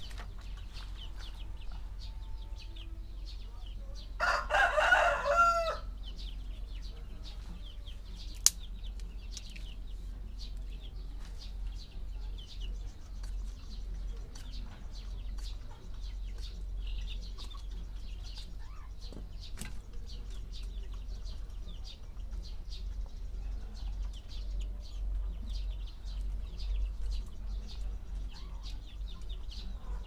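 A rooster crows once, a loud call of about a second and a half, about four seconds in, with faint high chirps throughout and a single sharp click a few seconds after the crow.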